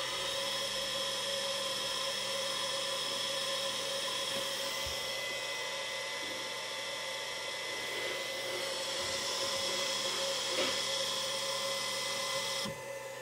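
Stöber servo motor on an SD6 servo drive spinning at about 3000 rpm, a steady whine made of several tones. Near the end the upper part of the whine cuts off suddenly as the drive is stopped.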